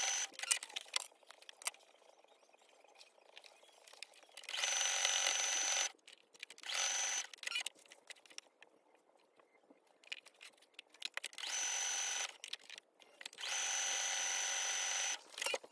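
Brother electric sewing machine stitching in short runs, starting and stopping about five times with a steady high whine while it runs. Small clicks and fabric rustles fill the gaps as the work is repositioned.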